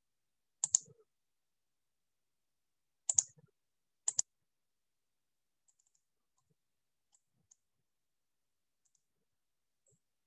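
Computer mouse clicking: three sharp clicks, one about a second in and two close together at about three and four seconds, then a few faint ticks.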